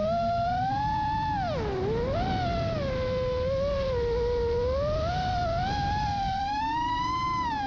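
FPV quadcopter's brushless motors whining, the pitch rising and falling with the throttle. It drops sharply about two seconds in and climbs again near the end, over a low rushing of prop wash and wind.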